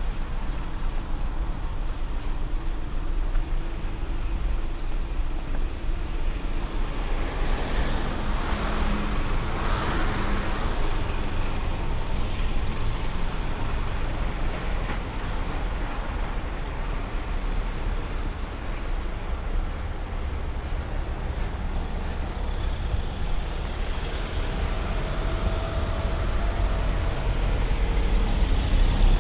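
Wind buffeting the microphone: a steady low rumble under a broad rushing noise, which swells for a few seconds about eight seconds in.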